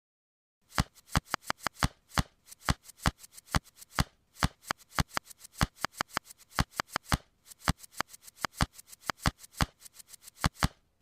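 Plastic tiles of a fifteen puzzle clicking as they are slid quickly during a speedsolve, about five or six clicks a second in quick runs broken by short pauses, starting about a second in.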